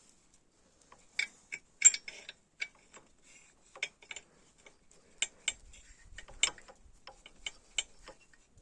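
Sharp, irregular metallic clicks of a tubular socket wrench turned with a screwdriver through its hole, working on the cylinder-head nuts of a motorcycle engine during reassembly after a head-gasket change. About a dozen clicks, uneven in spacing, starting about a second in.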